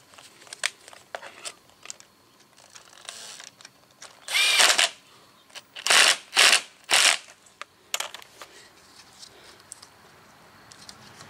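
Cordless drill-driver running in a bolt that holds the intercooler: one run of the motor a little over four seconds in, then three short bursts as the bolt is snugged down. Light clicks of tools being handled come before and after.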